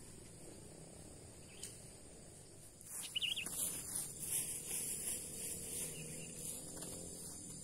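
Insects buzzing steadily at a high pitch, with a short burst of bird chirps about three seconds in, followed by a few seconds of rustling.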